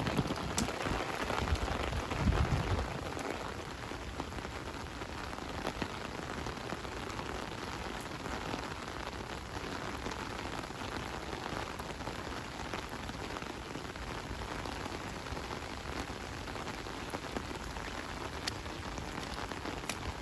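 Steady rain falling, with scattered drip ticks and a few low rumbles in the first three seconds.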